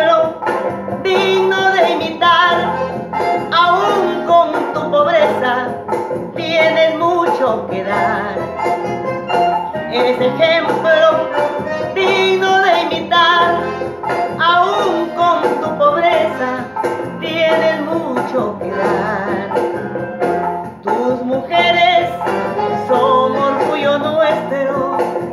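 A woman singing a Peruvian vals into a microphone, with instrumental accompaniment.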